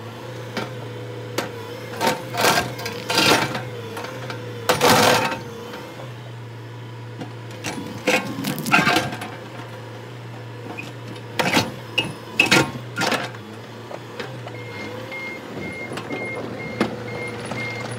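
Bobcat compact excavator's diesel engine and hydraulics running steadily while its steel bucket knocks and scrapes against a large boulder split by expansive demolition grout, prying the halves apart: a series of sharp knocks and grinding scrapes. From about fifteen seconds in, a faint, regular beeping joins the engine.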